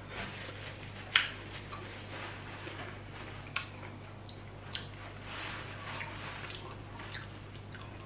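A person chewing a mouthful of som tam (green papaya salad), with three short sharp clicks spread through the chewing.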